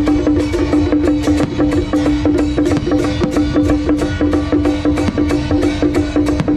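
Festival procession music: a fast, even percussion beat with one long held pitched note running under it.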